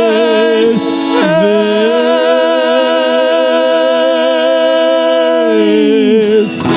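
Sung sertanejo song: the singers hold one long note with vibrato for several seconds, which bends down and drops away near the end before the next phrase begins.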